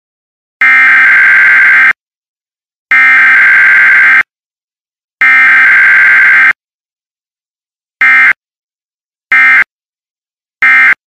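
Emergency Alert System SAME data bursts: three long digital bursts of over a second each, about a second apart, then three short bursts, the end-of-message code that closes an EAS alert.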